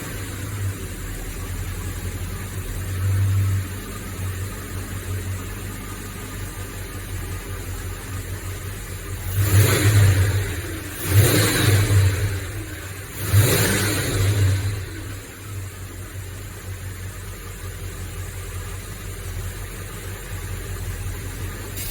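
Mercedes-Benz 560SEC's M117 V8 idling just after starting, revved three times in quick succession about halfway through, each rev rising and falling back to a steady idle.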